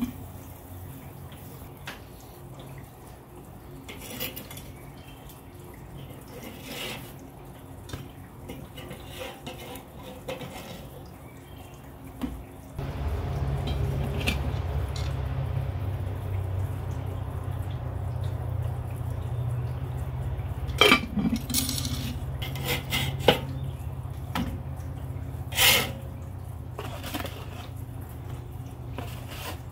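A metal spatula clinking and scraping on a charcoal kettle grill's grate as buns are toasted and lifted off, in scattered light clicks and a few sharper knocks in the second half. A steady low rumble sets in about halfway through.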